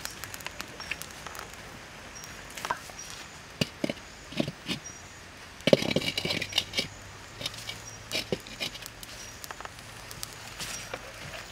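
Wood fire crackling, with scattered sharp pops and snaps. About six seconds in, a metal wok is set down on the metal stand over the fire with a short clatter of knocks.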